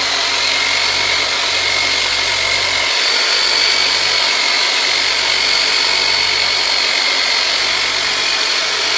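Handheld electric massage tool (the 'turbinator') running steadily: a loud motor hiss with a high, steady whine, used to loosen tight muscles holding the hip up.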